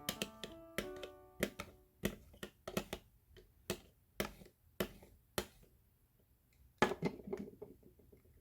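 Background piano music fading out in the first second or so, then a series of sharp clicks and taps of small plastic toy parts being handled, with a quick cluster of knocks near the end.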